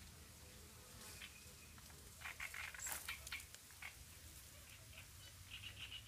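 Small birds chirping faintly, scattered short high calls, with a quick run of short notes near the end, over a low outdoor rumble.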